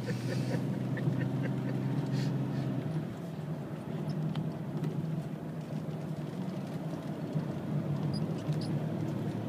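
A car driving at a steady speed, heard from inside the cabin: a steady low engine and road drone.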